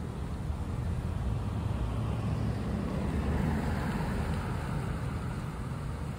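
Road traffic: a vehicle passing, building to its loudest about halfway through and fading again, over a steady low rumble.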